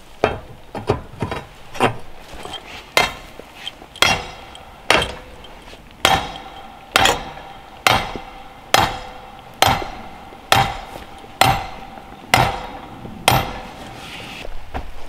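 Sledgehammer striking a metal stake: a few lighter knocks, then about a dozen heavy blows just under a second apart, each with a ringing clang, stopping shortly before the end.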